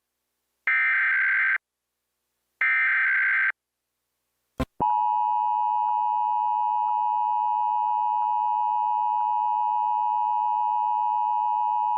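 Emergency Alert System required monthly test over TV audio: two screechy one-second bursts of the digital SAME header data, a short click, then from about five seconds in the steady two-tone EAS attention signal held without a break.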